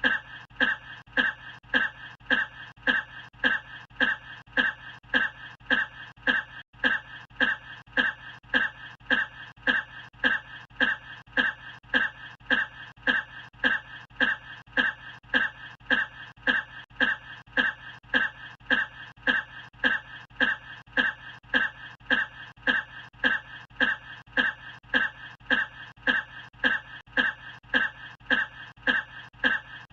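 A short cough repeated in an unchanging loop, about two coughs a second, each one identical, with a split-second break about seven seconds in.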